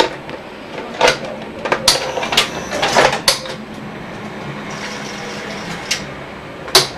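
Sony UVW-1700G Betacam SP video tape deck's transport mechanism running with a steady whir, broken by several sharp clicks and clunks, a cluster in the first few seconds and a loud one near the end, as a test playback starts.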